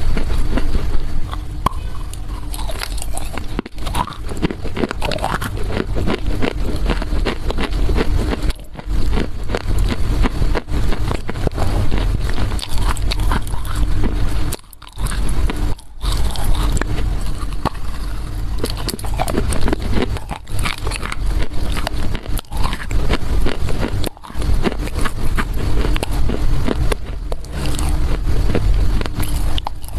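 Crunching and chewing of a lump of dried loess clay, right up against the microphone: dense, crackly crunches that go on throughout, with a short pause about halfway.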